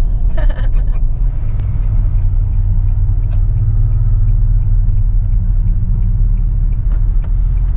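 Steady low rumble inside the cabin of a moving Nissan Patrol Y62: engine and road noise while driving at town speed.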